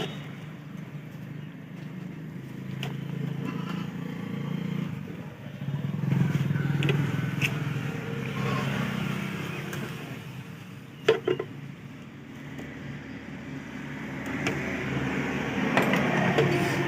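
Hand work on a mixer grinder being taken apart: scattered metal clicks and scrapes from tools and parts, with a sharp double knock about eleven seconds in and a cluster of clicks near the end, over a steady low background rumble.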